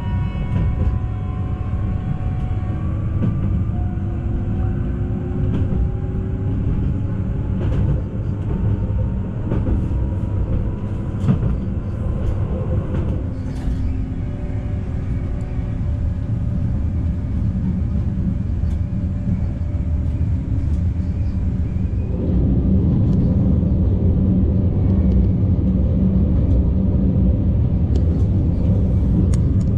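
Newag Impuls 2 regional train heard from inside the passenger car, pulling away from a station stop: a steady low running rumble with a whine that rises slowly in pitch as it gathers speed, and a few sharp clicks. From about 22 s in the rumble gets louder.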